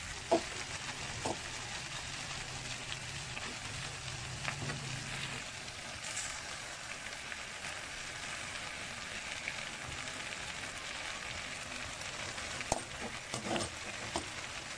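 Diced pork mask sizzling as it fries in a metal wok, a steady frying hiss. A metal ladle clinks against the pan a few times, briefly near the start and again near the end as it stirs.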